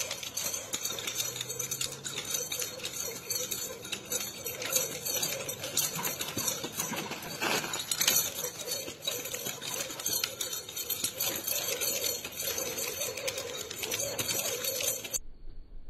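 Nunchucks being whirled and swung, a fast continuous clattering rattle that stops abruptly near the end.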